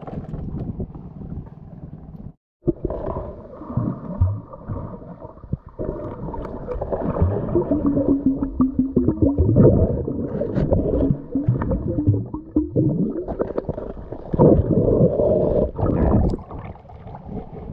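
Muffled sound from an underwater camera in shallow sea water: water churning and gurgling against the housing as the diver moves, with a faint steady hum. It starts after a brief dropout about two and a half seconds in.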